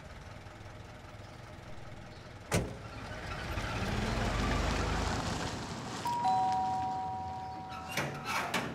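Small van engine pulling away: a sharp thud, then a rumble that swells as the vehicle drives off. Then a two-note car horn sounds in one long honk of about two seconds.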